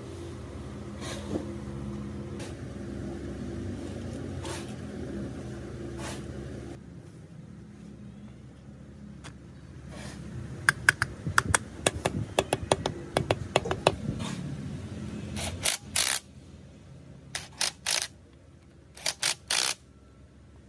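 A handheld impact wrench hammering nuts down onto an engine crankcase's studs: a long rattling run about halfway through, then three short bursts near the end. Before that there is a steady low hum with a few scattered clicks.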